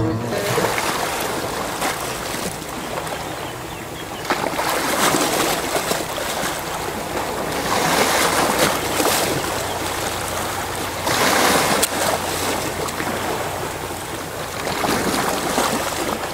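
Waves washing on a shore: a steady rushing wash that swells and falls back every three or four seconds.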